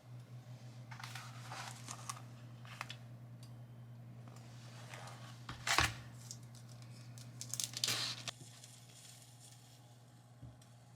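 Intermittent rustling and crinkling handling noises, loudest about six and eight seconds in, over a steady low hum.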